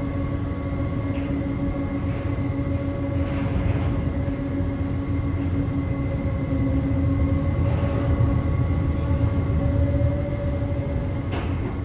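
Paddle wheel of the paddle steamer Goethe churning through the river, heard from the viewing window beside it: a steady low rumble and splashing water, with a constant machinery hum over it.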